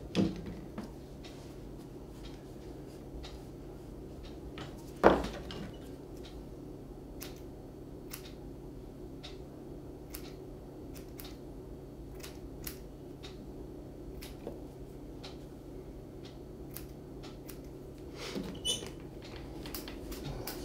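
Grooming scissors snipping through an Airedale Terrier's wiry coat: thin, sharp clicks at irregular intervals, roughly one a second. One louder knock comes about five seconds in, over a steady low hum.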